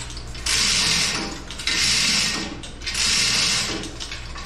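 Hand chain hoist being worked to shift a suspended GM 6.5 diesel engine, ratcheting and rattling in three strokes of about a second each.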